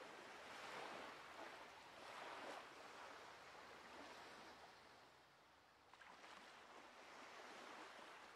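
Faint surf: small waves washing onto a sandy beach, the wash swelling and ebbing every couple of seconds.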